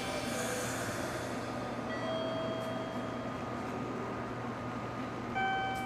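Rush of a passing train fading away over the first second or so, leaving a steady background hum. Electronic tones follow: one held tone about two seconds in, and a brighter tone of several pitches together near the end.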